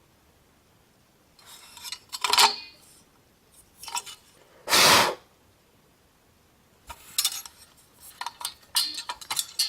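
Metal clanking and clinking from a vintage fire alarm horn's metal housing being handled and worked on. A couple of clanks come about two seconds in, one loud clank near the middle, and a run of quick lighter clicks near the end.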